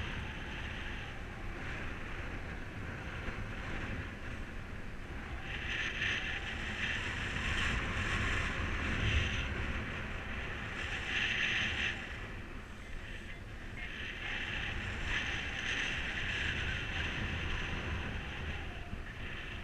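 Airflow buffeting the microphone in flight under a paraglider mini wing: a steady low rumble, with a higher rushing hiss that swells and eases several times.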